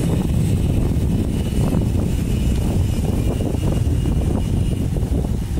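Wind buffeting the microphone of a camera riding along on a moving bicycle: a steady, loud, low rumble.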